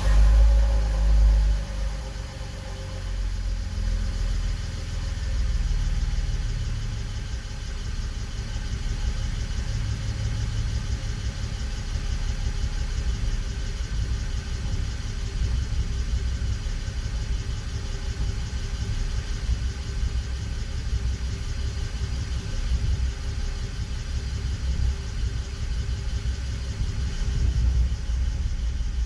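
BMW E92 325i inline-six running at idle on a cold start, loud for the first couple of seconds and then settling into a steady, uneven low rumble: a rough idle from a misfire.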